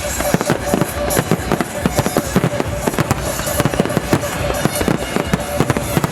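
Starmine fireworks barrage: a dense run of shells bursting and crackling several times a second, over music played on loudspeakers.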